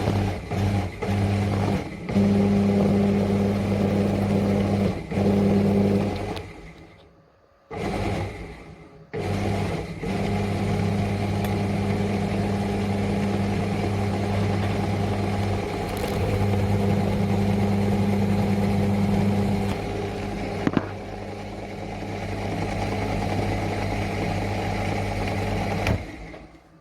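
Electric motor running with a steady hum. It stops and starts a few times in the first couple of seconds, cuts out for about two seconds around seven seconds in, then runs steadily again until it stops near the end.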